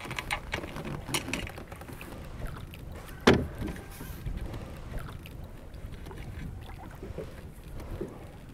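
Knocks and clatter in a small boat on the water, with one loud sharp knock about three seconds in.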